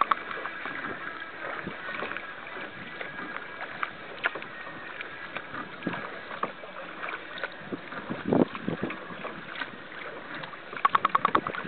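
Choppy water lapping against a small boat's hull: an even rushing noise with scattered small knocks and splashes, and one louder splash about eight seconds in.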